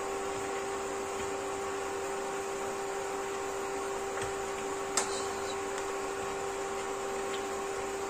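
Steady mechanical hum with a constant low tone, like a running fan, and a single light click about five seconds in.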